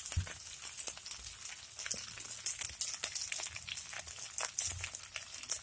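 Fried rice sizzling in a hot wok while a metal spatula stirs it, with frequent short, irregular scrapes and clicks.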